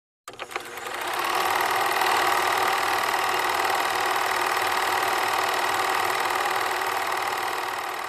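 Film projector sound effect: a reel-to-reel movie projector starts with a few clicks, then runs with a steady, rapid mechanical clatter.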